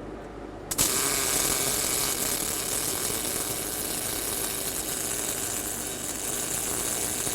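Lincoln Power Wave S350 STT (Surface Tension Transfer) welding arc laying an open root pass downhill on carbon steel pipe, with 0.045 wire and 75 argon / 25 CO2 shielding gas. The arc strikes suddenly about a second in and then runs as a steady hiss.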